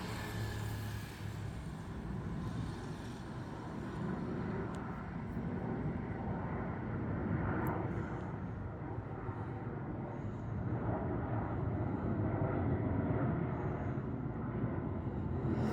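Jet engines of a Boeing 737-800 (CFM56-7B turbofans) giving a steady rumble that grows a little louder toward the middle and end.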